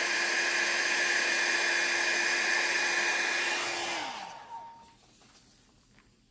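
Revlon 500-watt styling-brush hair dryer running steadily, a rush of air with a steady hum in it. About four seconds in it is switched off and the motor winds down, the hum falling in pitch as the air dies away.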